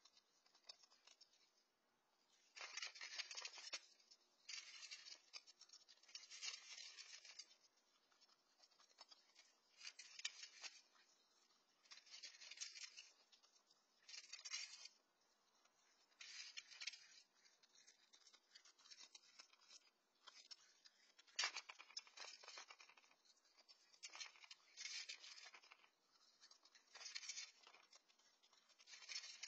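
Raccoon eating dry cat food from a metal pan: bursts of crunching kibble, each about a second long, every couple of seconds, with one sharp click partway through.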